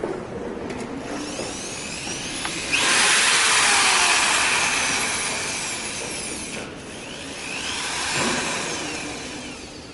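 Milwaukee Magnum 0299-20 half-inch corded drill running. Its motor speeds up sharply about three seconds in, winds down, and speeds up again briefly near the end.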